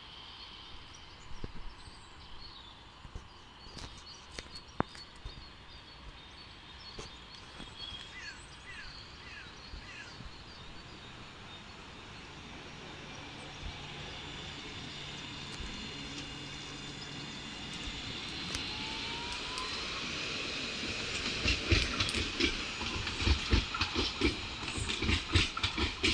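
Nottingham tram approaching and passing: a steady hum and a rising motor whine build as it nears. Its wheels then clatter repeatedly over the rail joints and points, loudest in the last few seconds.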